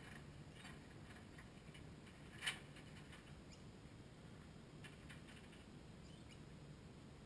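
Near silence, with faint scattered clicks and one sharper click about two and a half seconds in.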